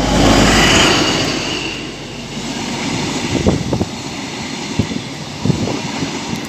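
An InterCity 125 High Speed Train passing at speed. The Class 43 diesel power car goes by loudest in the first second or so, then the Mark 3 coaches roll past with a steady rush and several sharp clicks of wheels over rail joints.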